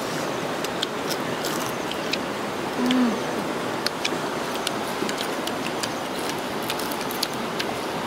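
Crisp crunching clicks of roasted crickets being bitten and chewed, scattered irregularly over a steady hiss, with a short low "mmm" of tasting about three seconds in.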